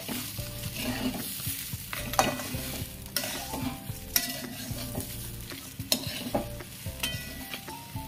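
Spatula stirring and scraping spiced gobindobhog rice and fried fish heads around a wok, with sharp scrapes about once a second over a light sizzle as the rice fries dry in the oil.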